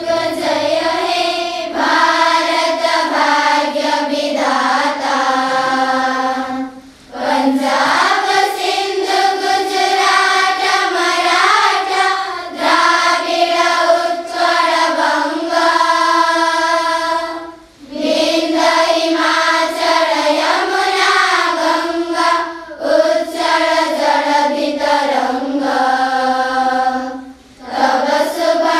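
A group of children singing a song together in unison, in long phrases broken by short pauses about every ten seconds.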